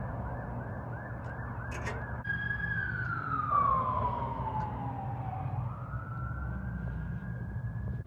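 Emergency vehicle siren: a fast yelp cycling about three times a second, switching about two seconds in to a slow wail that falls and then rises again and holds. A steady low hum runs underneath.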